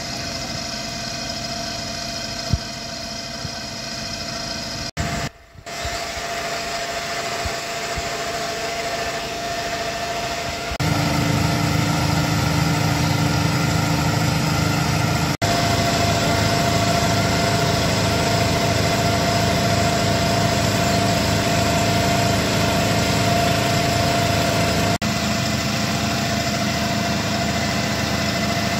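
Small petrol engine of a portable floating water pump running steadily while pumping out floodwater. The engine note jumps in level a few times and is louder from about eleven seconds in.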